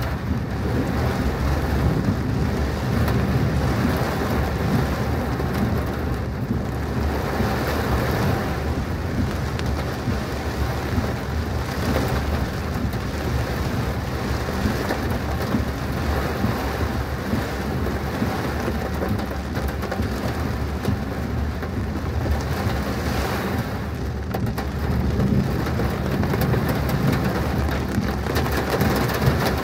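Heavy rain drumming on a moving car, with a steady low rumble underneath; the hiss swells and eases several times.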